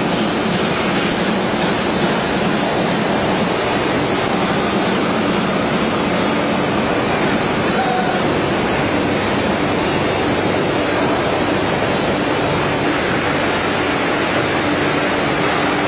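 Veneer splicer machine running: a loud, steady mechanical noise with a faint low hum beneath it.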